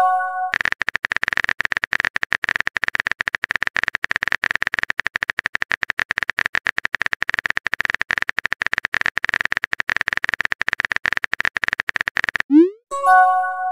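Simulated phone-keyboard typing clicks, rapid and steady, as a message is typed out. Near the end they stop, followed by a short rising swoosh and a chime of a few notes as the message is sent.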